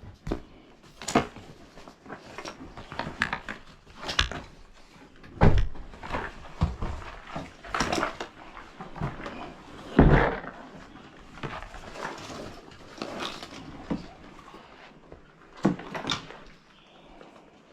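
Camping gear being handled and set up: irregular knocks, clatters and rustling, with two heavier thumps about five and a half and ten seconds in.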